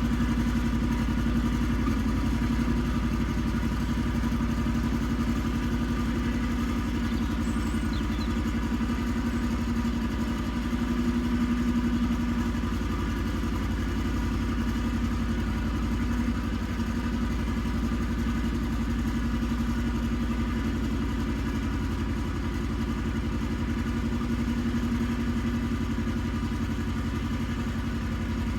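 Iseki TX1300 compact tractor's engine running steadily while ploughing.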